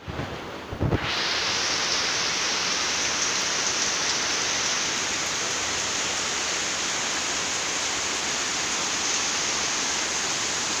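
Heavy rain pouring down in a dense, even hiss that holds steady. There are a couple of low bumps in the first second, just before the rain comes in at full level.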